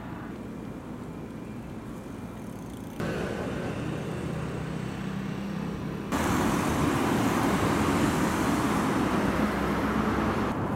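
Road traffic at a city intersection: cars running and passing with a steady rumble. The sound jumps abruptly louder twice, about three and six seconds in.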